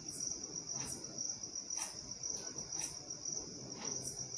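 A metal spoon stirring pieces of mutton in a yogurt-and-spice marinade in a ceramic bowl, giving soft scrapes and squelches every half second or so. Under it runs a continuous high-pitched tone.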